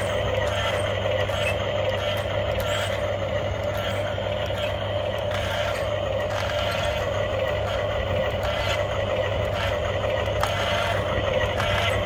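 Remote-control toy construction vehicles running, giving a steady engine-like hum with a repeating pattern throughout.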